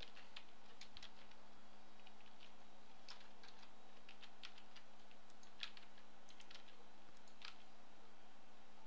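Faint computer keyboard keys tapped in short irregular runs, over a steady low hum.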